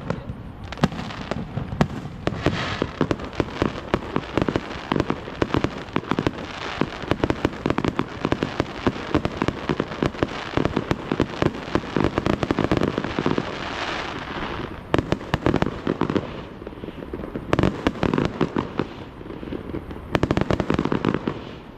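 Fireworks going off in a dense, rapid barrage of cracks, pops and heavier bangs, thinning briefly about two thirds of the way through.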